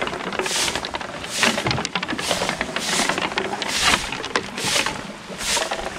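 Footsteps on stony ground, a short crunch about every 0.8 seconds.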